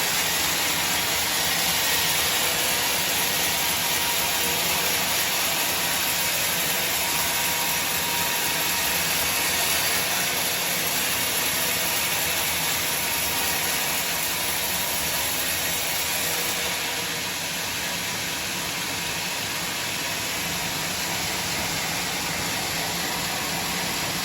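Sawmill machinery running with a steady mechanical noise, a little quieter from about two-thirds of the way in.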